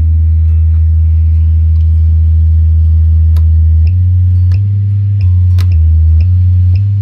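Klipsch SW-450 subwoofer playing a loud, steady low test tone from a function generator. About four seconds in, the pitch starts stepping between neighbouring low notes every half second or so as the frequency is changed, with faint clicks at the changes.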